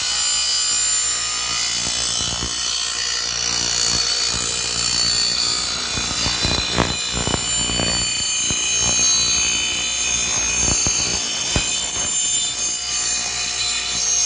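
Power grinder's abrasive wheel grinding the steel edge of a machete: a steady high grinding hiss over the motor's whine. A few brief knocks come in about halfway through as the blade is shifted against the wheel.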